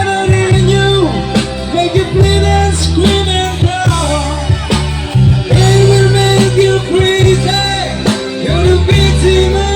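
Band music from a slow rock ballad: held bass notes under a melody that bends and slides in pitch, with guitar.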